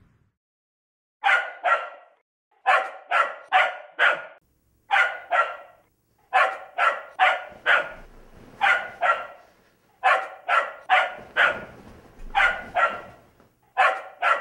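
A dog barking repeatedly in quick runs of two to four short barks, starting about a second in.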